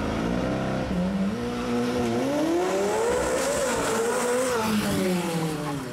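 Sports car making a hard launch from a standstill: the engine revs climb steeply through a couple of quick gear changes, peak past halfway, then fall away as the car passes and slows.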